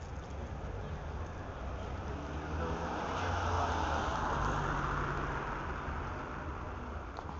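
A car driving past, its engine and tyre noise swelling, peaking about halfway through and fading away.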